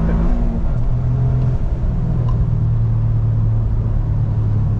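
Toyota GR Corolla's turbocharged 1.6-litre three-cylinder engine and tyre noise heard from inside the cabin while driving on track. The engine note drops about half a second in, then holds steady.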